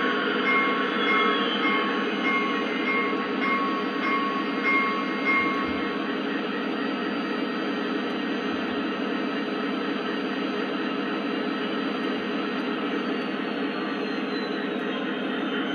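Lionel model Union Pacific SD70ACe diesel locomotive's onboard sound system playing a steady diesel engine run through its small speaker. A faint high tone repeats evenly for the first six seconds or so, then stops.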